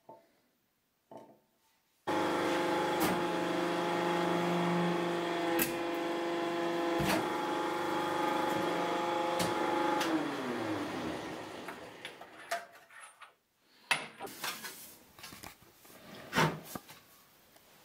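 The electric motor of a sheet-metal stamping press runs with a steady hum and a few sharp clicks, then spins down with a falling pitch about ten seconds in. After a short pause, the thin stamped metal sheet is handled with light rattles, taps and rubbing.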